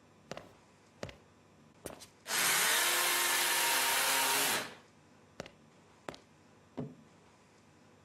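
Philips PowerPro Aqua cordless stick vacuum switched on, running for about two seconds, then switched off, its motor winding down. Several sharp clicks of plastic parts being handled come before and after.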